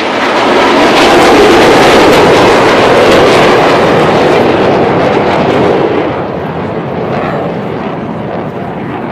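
A formation of KAI T-50B jet trainers flying past with their jet engines running. It is a loud rushing noise that swells about half a second in and fades after about six seconds as the jets pass.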